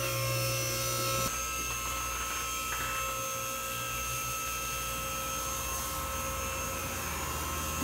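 Two-post car lift's electric hydraulic pump motor running with a steady hum as it raises the car. Its tone changes slightly a little over a second in.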